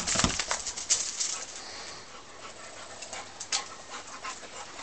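Footsteps crunching on gravel around a wet dog, with a low thump at the very start. The crunching fades after about a second and a half, leaving a quieter stretch with a few scattered clicks.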